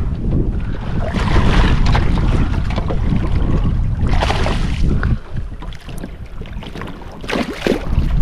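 Wind rumbling on the microphone, with three bursts of splashing as a hooked barracuda thrashes at the water's surface: about a second in, near the middle, and near the end.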